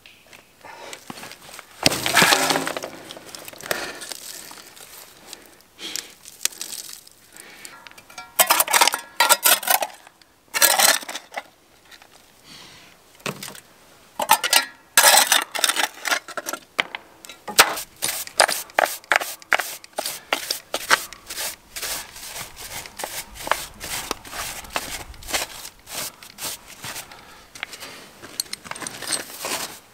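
A hand tool scraping mud and stones off the concrete floor of a tank, with stones and grit clattering, in irregular bursts. In the second half this turns into a long run of quick, even scraping strokes, about three to four a second.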